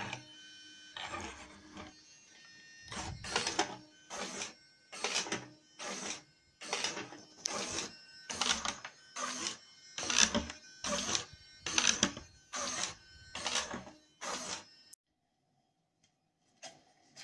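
Model glider's wing servos driving the ailerons and flaps back and forth: a short whirring whine repeated about fifteen times, a little faster than once a second, stopping abruptly near the end.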